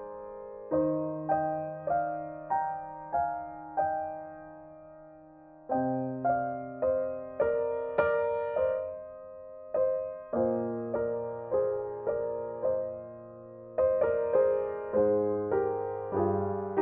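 Solo piano playing a slow, calm prelude in short phrases of struck notes that ring and fade, with brief pauses between phrases.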